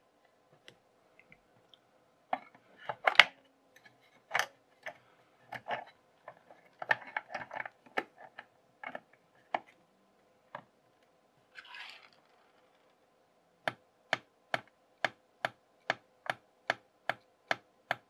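Irregular clicks and rustles of wires being worked into a plastic kit's spring connectors, then, about three-quarters of the way in, the push-button key of a kit Morse code box clicking steadily a little over twice a second. No buzz comes from its piezo transducer: the circuit is not working.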